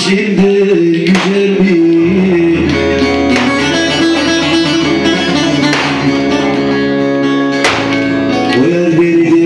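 Live instrumental Turkish folk music: a bağlama (long-necked saz) plays the melody over a keyboard, with a hand drum struck about once a second. A low held note sounds through the middle and drops out near the end.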